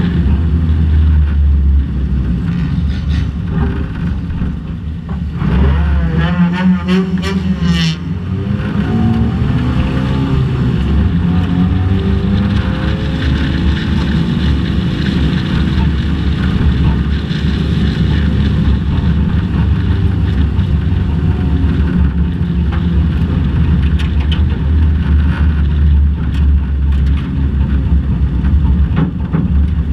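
Dodge Neon race car's four-cylinder engine running hard at speed, heard from on board with road and wind noise. Its pitch wavers up and down about six to eight seconds in, then climbs as the car accelerates.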